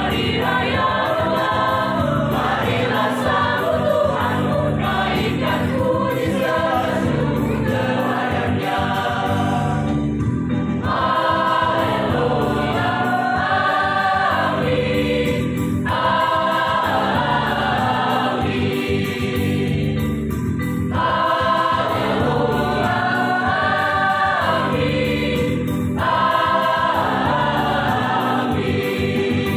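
A church choir singing a Christian choral piece in parts, in sung phrases of a few seconds each, with brief breaks between them.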